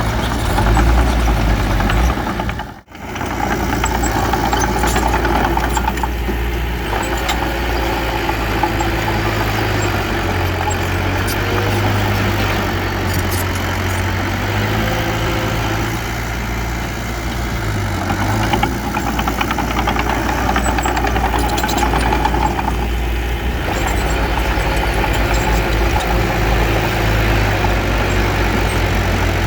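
Diesel engine of heavy earthmoving equipment running steadily with a low engine drone. The sound cuts out for an instant about three seconds in, then carries on.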